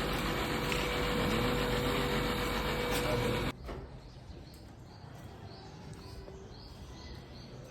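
A machine runs with a steady hum and noise, then cuts off abruptly about three and a half seconds in. After that, a bird gives a short high chirp over and over, roughly every 0.7 seconds.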